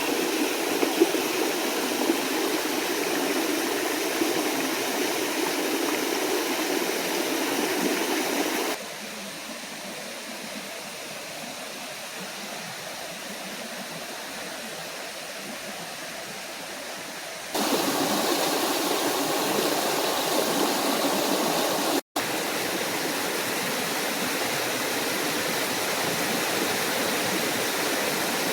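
Small forest waterfall and stream rushing steadily. About nine seconds in the rush drops suddenly to a quieter, thinner level, and it returns to the fuller sound about eight seconds later. A split-second gap in the sound follows a few seconds after that.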